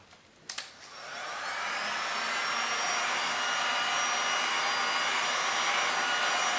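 Handheld heat gun started with a couple of clicks about half a second in. Its fan spins up over the next second, then blows steadily with a faint motor whine, warming the epoxy resin on the tile.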